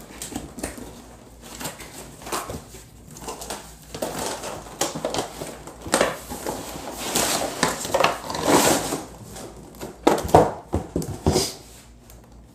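Cardboard box being opened by hand: the lid lifted off with cardboard sliding, scraping and rustling in irregular bursts, and a few sharper knocks near the end as the plastic inner tray is handled.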